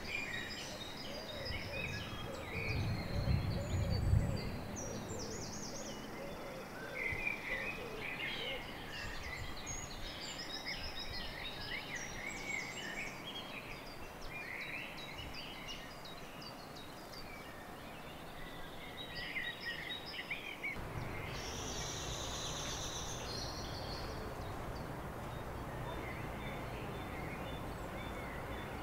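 Several small birds singing and chirping, many short high calls and trills over outdoor background noise, with a brief low rumble about three seconds in. About two-thirds of the way through, a steady low hum comes in under fewer bird calls.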